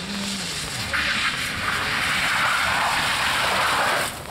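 Rally car coming through on a wet stage road: its engine running under a loud, steady hiss of tyres through standing water. The hiss cuts off sharply about four seconds in.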